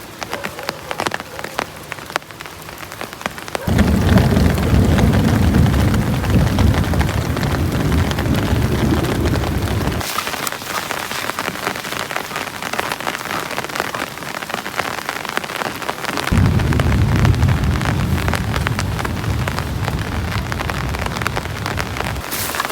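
Steady rain falling, with a dense patter of drops. Twice a deep low rumble comes in suddenly, about four seconds in and again past the middle, each lasting around six seconds before cutting off abruptly.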